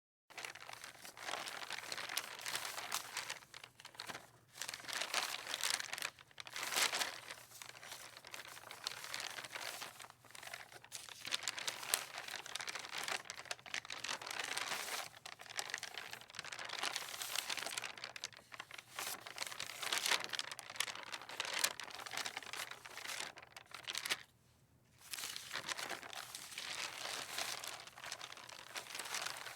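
Loose sheets of paper rustling and flapping in the wind, in irregular gusty swells of crinkling, with a brief lull about three-quarters of the way through.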